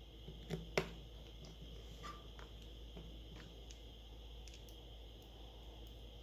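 Small screwdriver and tiny screws clicking against a smartphone's frame while the screws are mounted. Two sharp clicks come about half a second and a second in, then a few faint ticks.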